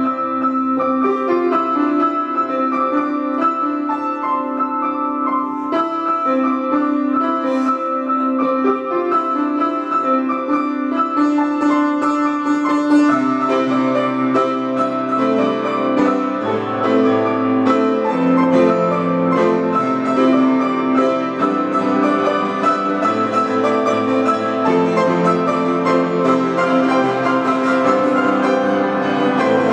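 Upright piano played four hands as a duet, a steady run of notes. From about 13 seconds in, lower bass notes join and the sound grows fuller.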